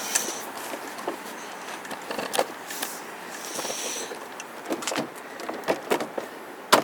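Plastic door trim panel being fitted back onto a Honda Odyssey door: scattered clicks and knocks, a brief scraping rub about halfway, and a sharp knock near the end.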